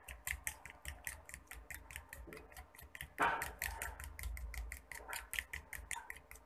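Fork beating a runny egg batter in a glass bowl, the tines clicking against the glass in quick, even strokes of about six or seven a second, with one louder stroke a little after three seconds in.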